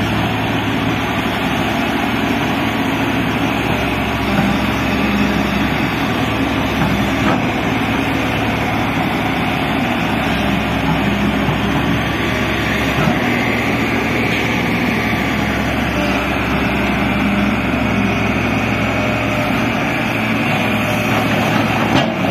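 Diesel engine of a JCB tracked excavator running steadily under load while its boom and bucket work.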